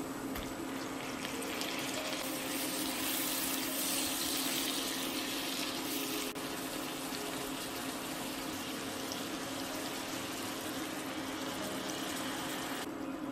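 Water running steadily, as from a kitchen tap, cutting off shortly before the end, over a constant low hum.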